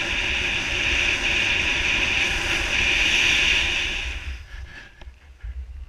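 Skis hissing and scraping over groomed snow, with wind rushing over the camera microphone, during a fast downhill run. The loud hiss dies away about four seconds in.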